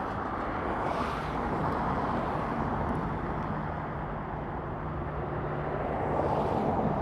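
Steady road traffic noise, with a car going by about a second in and another near the end.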